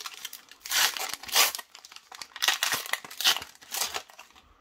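Plastic wrapper of a Panini Super Mario trading-card pack being torn open and crinkled by hand, in several bursts of tearing and rustling that die away near the end.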